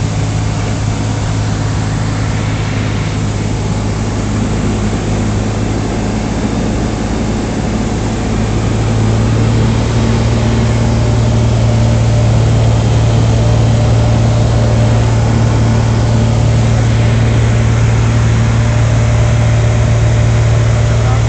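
ICP Savannah ultralight's engine and propeller droning steadily, heard from inside the cockpit in flight. About nine seconds in, the drone steps slightly up in pitch and gets louder, then holds steady.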